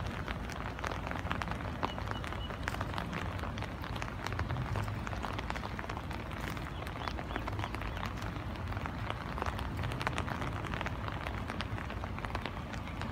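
Rain falling, a dense, irregular pattering of drops, with a low rumble underneath.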